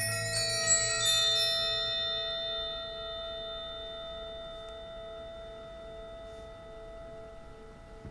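High-pitched metal percussion bells struck in a quick cluster at the start and left to ring, their tones slowly dying away, with one lower tone pulsing as it fades. A low marimba roll ends as the bells come in.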